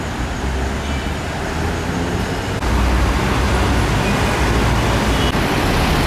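Steady road traffic noise from passing cars and minibuses, getting louder about two and a half seconds in.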